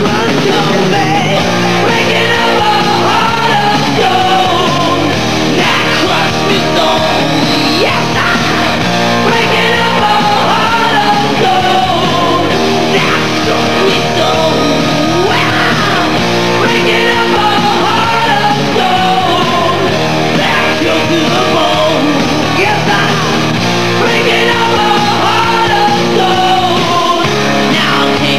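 Hard rock song: a male lead singer sings hard over a full rock band with drums.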